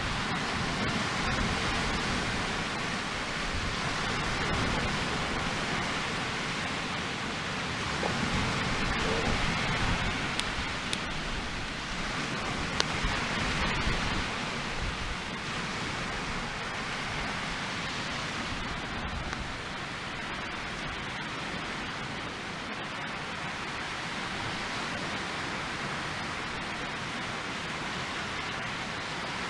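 Split-log Swedish torch fire burning, with a few sharp crackles, under a steady rushing hiss of wind on the lakeshore.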